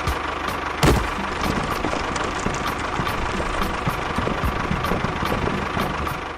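A small machine's motor running steadily, with a sharp knock about a second in.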